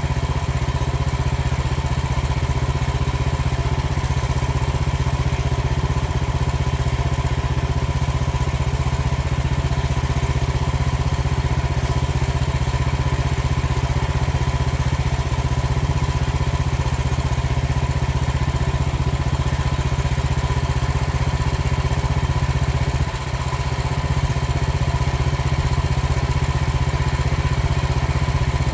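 Frontier portable bandsaw sawmill's small gasoline engine running steadily at a constant speed, with one brief dip in level about two thirds of the way through.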